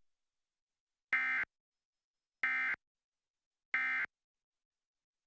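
Emergency Alert System end-of-message (EOM) data tones: three short, identical buzzy bursts of SAME digital code, about a second apart. They signal that the alert message, here a Required Monthly Test, has ended.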